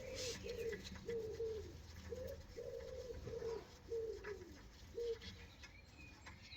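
A pigeon cooing, a quick run of short falling coos about two a second.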